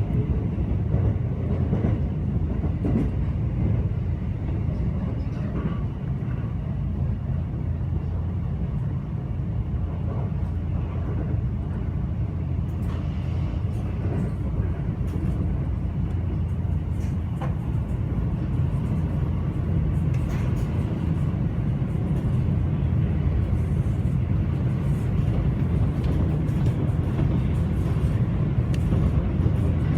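Train running at steady speed, heard from inside the carriage: a constant low rumble with a few faint clicks.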